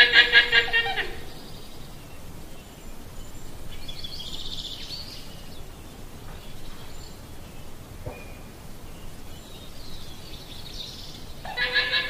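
Llama calling: a loud, high, warbling call right at the start and another near the end, with fainter high calls in between.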